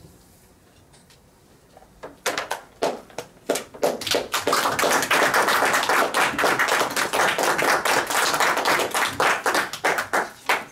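A small audience applauding in a room. A few scattered claps start about two seconds in and build to full steady applause, which thins out to a last few claps near the end.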